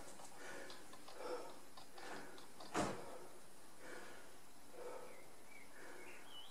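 Quiet room with faint soft sounds, broken by a single sharp click about three seconds in; faint high chirps near the end.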